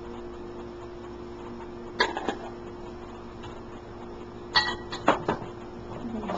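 Cookware clinking and knocking as a frying pan and its utensils are handled: a couple of clicks about two seconds in, then a louder cluster of metallic clinks about four and a half to five and a half seconds in, over a steady hum.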